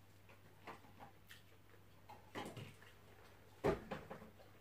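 Close-up eating sounds of grilled fish eaten with the fingers: scattered lip smacks and small wet clicks while chewing, with one louder, deeper thump a little before the end. A faint low hum runs underneath.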